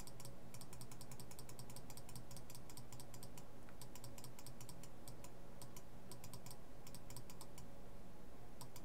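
A computer mouse button clicked rapidly over and over, about three or four clicks a second in uneven runs with a couple of short pauses, over a low steady hum.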